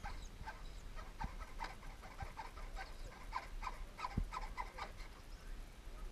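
An animal calling in a quick run of short, high chirps, about three a second, that stops about five seconds in. A few soft low thumps sound alongside.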